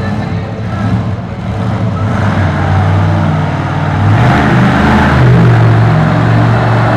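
The Cyclops monster truck's engine revving as the truck drives and turns across the dirt. It gets louder about two seconds in and again about four seconds in.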